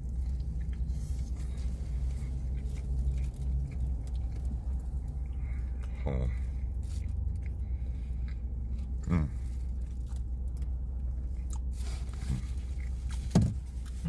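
Man biting into and chewing a smoked brisket sandwich, with three short falling vocal sounds, the last near the end the loudest, over a steady low hum of a car cabin with the engine running.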